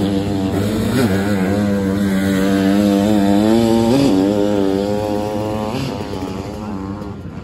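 Sidecarcross outfit's motocross engine revving, its pitch rising and falling with throttle blips. It holds steady for a couple of seconds in the middle, then fades gradually toward the end.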